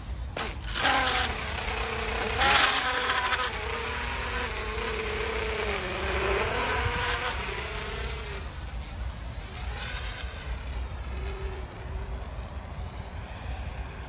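Eachine ATOMRC Seagull 3.5-inch cinewhoop FPV drone taking off and flying: its brushless motors and propellers make a high buzzing whine that rises and falls with the throttle. Two sharp throttle surges come in the first few seconds as it lifts off, and it gets quieter in the second half as it flies farther away. It is flying on one cracked propeller.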